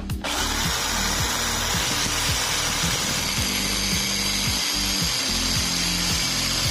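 Angle grinder's abrasive disc grinding the outer ring of a steel bearing that is spun in an electric drill's chuck: a loud, steady grinding hiss that starts just after the beginning and holds evenly throughout.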